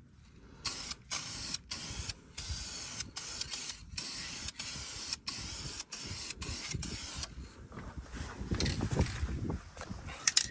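Aerosol spray paint can spraying in a series of short hissing bursts with brief pauses, over about six seconds, then it stops.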